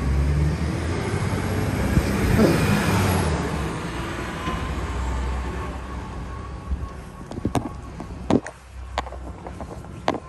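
A road vehicle passing close by, the noise swelling to a peak about two to three seconds in with a falling pitch, then fading away. After that come scattered sharp taps and clicks.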